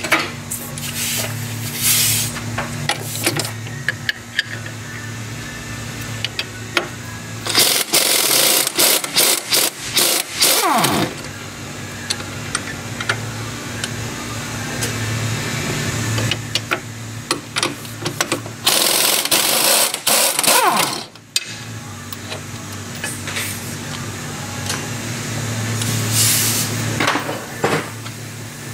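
Impact wrench hammering out the strut's 21 mm lower mounting bolts at the spindle, in two long rattling runs of about three seconds each, with shorter bursts near the start and end, over a steady low shop hum.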